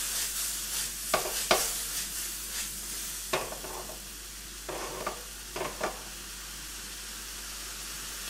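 Onion, red pepper and shiitake mushrooms sizzling steadily in a hot wok, with a utensil stirring and knocking against the wok several times in the first six seconds; after that only the sizzle goes on.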